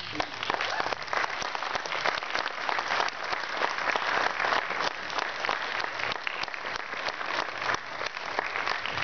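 A crowd of wedding guests applauding, many hands clapping at once in a dense, steady patter.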